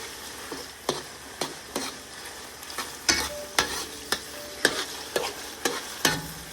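Ground beef sizzling in a pan while it browns, with a utensil knocking and scraping against the pan about every half second as it is stirred.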